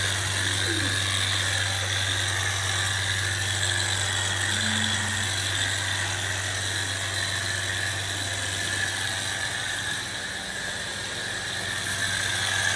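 Steady machine drone: a low hum with a constant high whine over it, holding level, dipping slightly about ten seconds in.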